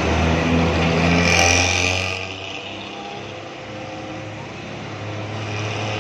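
Diesel engine of a Hasta Putra intercity coach running close by as it pulls away, with a short hiss about a second and a half in. About two seconds in the sound drops to quieter street traffic on a wet road, with an engine rumble growing near the end.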